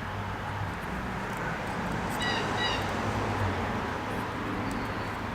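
Two short high chirps from a bird about two seconds in, over a steady background hiss and low hum.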